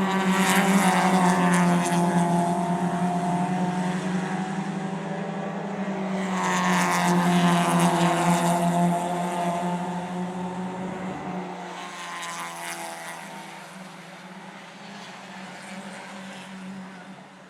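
Racing cars passing at speed, three times: loud passes near the start and about six seconds in, and a fainter one about twelve seconds in. Each engine note falls in pitch as the car goes by.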